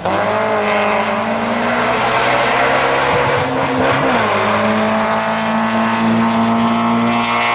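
Peugeot 306 S16 rally car's four-cylinder engine run hard at high revs on a stage, its pitch dipping briefly and climbing again near the start and about four seconds in, then rising steadily.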